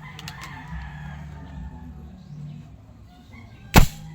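PVC toy gun fired once: a few light clicks, then a single loud, sharp shot near the end.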